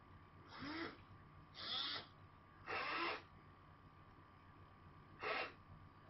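The robot arm's small geared motors whirring in five short spurts of about half a second each, at uneven intervals, as the arm is jogged down a little at a time.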